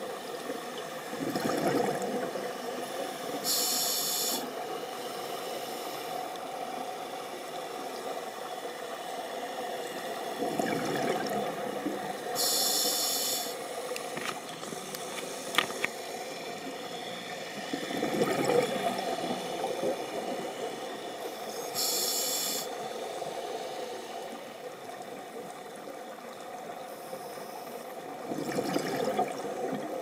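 Scuba diver breathing through a regulator, heard underwater. A short hiss of inhaled air comes three times, and a longer bubbling rush of exhaled bubbles comes four times, in a slow cycle about every eight to nine seconds.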